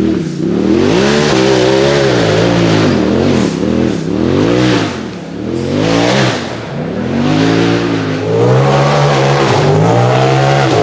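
UTV race buggy engine revved hard in repeated bursts over rough dirt terrain. The pitch rises and falls roughly once a second, then holds a steadier high run near the end.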